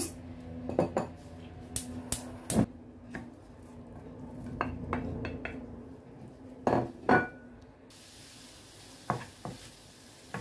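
A wooden spoon knocks and scrapes against a nonstick frying pan while peeled shrimp are tipped in from a bowl and stirred. There are scattered sharp clacks, the loudest a pair about seven seconds in.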